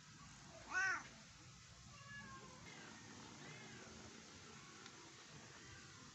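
A cat meowing: one loud meow about a second in, then a couple of faint, thin meows.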